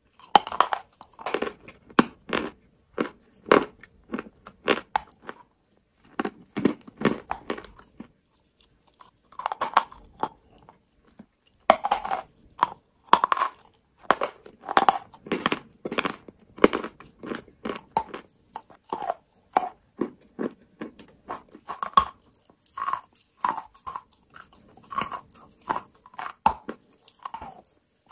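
A block of chalk being bitten and chewed: sharp, crunchy snaps that come in quick clusters, with a couple of brief pauses between bites.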